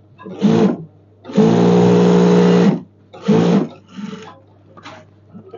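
Sewing machine stitching a seam in short runs: three bursts that start and stop sharply, the longest about a second and a half in the middle, each with a steady motor hum, then two weaker short runs near the end.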